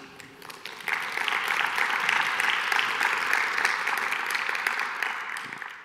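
Audience applauding after a lecture. The clapping swells about a second in, holds steady, and tapers off near the end.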